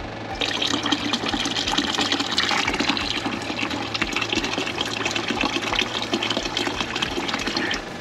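Liquid descaling solution (Barnacle Buster) being poured in a steady gush into the circulating flush water of a marine air-conditioner flushing setup, starting about half a second in and cutting off just before the end. Under it runs the steady hum of the transfer pump.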